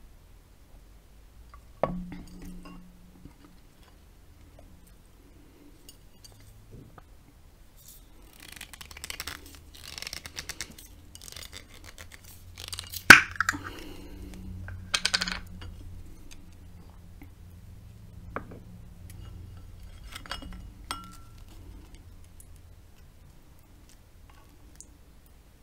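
Breakfast tableware being handled: a ceramic bowl, wooden spoons and glass jam jars knocking and clinking. There is a knock about two seconds in, a stretch of scraping and rustling, and one sharp clink about halfway through that is the loudest sound, then a few small taps.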